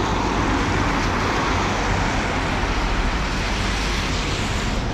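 Road traffic passing on a wet street: a steady hiss of tyres on wet tarmac over a low rumble.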